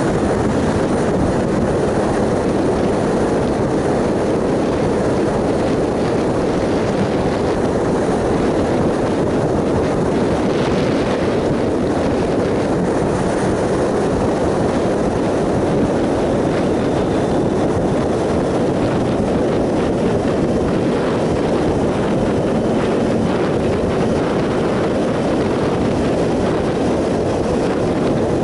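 2007 Triumph Sprint ST 1050's three-cylinder engine running steadily on the move, under a constant rush of wind noise.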